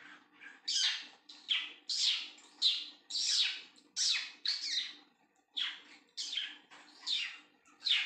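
Young budgerigars calling: a quick series of short, harsh squawks, each falling in pitch, about one or two a second.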